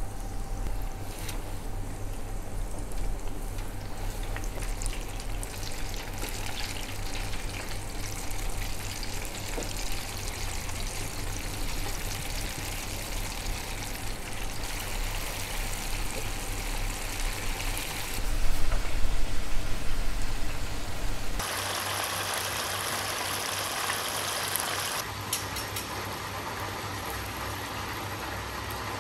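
Coated chicken wings deep-frying in hot oil in an electric countertop fryer: a steady sizzle and bubbling, louder for a few seconds about two-thirds of the way through.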